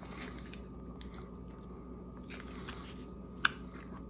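Faint wet mouth sounds of eating a sour slime gel candy, soft squishes and lip smacks, with a sharp click about three and a half seconds in, over a steady low room hum.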